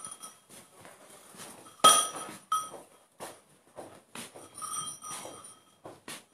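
Irregular metallic clinks and jingles, each ringing briefly at the same few pitches, with the loudest strike about two seconds in.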